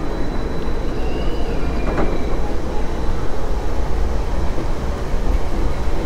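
Monorail car running with a steady low rumble as it pulls into the station. A faint high whine steps down in pitch about a second in, and there is a click about two seconds in.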